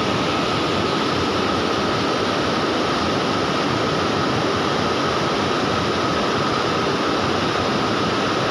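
Water pouring over a river dam spillway, a steady rushing with a steady high tone running through it.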